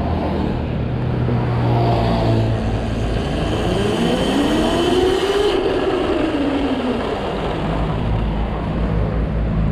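Husqvarna EE5 electric minicross bike's motor whining as the throttle is opened in power mode 5: the whine rises in pitch for about two seconds, then falls back as the throttle closes, over a steady low rumble.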